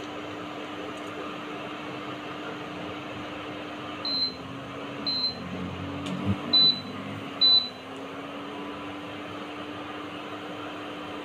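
Whole spices sizzling gently in hot oil and ghee in a steel pot, over a steady electrical hum. About four seconds in, four short, high electronic beeps come roughly a second apart, and the hum dips in pitch while they sound.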